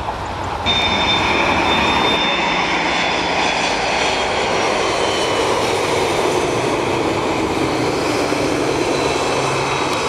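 China Airlines Airbus A330-302's twin General Electric CF6 turbofan engines at takeoff thrust as the jet rolls and rotates: a loud, steady jet rumble with high whining tones. Under a second in, the sound jumps suddenly louder and the whine sets in.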